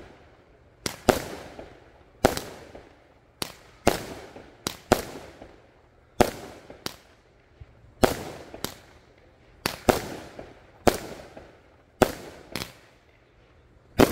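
Nunya 'Jaw Dropper' 16-shot consumer firework cake firing shot after shot: sharp bangs roughly once a second, some in quick pairs, each trailing off in a short decaying tail.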